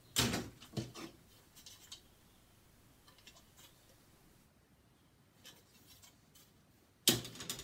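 Grey plastic model-kit sprues being handled, lifted out of a box and laid on a stack: short plastic clicks and rustles in the first second or so, a quiet stretch with faint ticks, then a louder clatter near the end.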